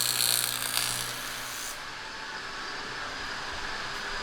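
A power tool runs with a steady hum and a bright hiss, then stops about a second and a half in, leaving faint even workshop background noise.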